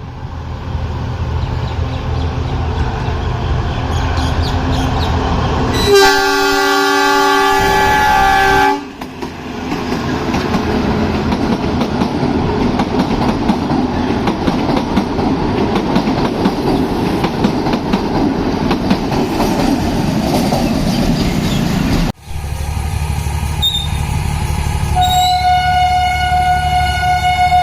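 Kangra Valley Railway narrow-gauge train running, its horn sounding for about three seconds about six seconds in, followed by the rumble and wheel noise of the moving train. After a sudden break near the end, a steady low engine rumble carries on with a held tone over it.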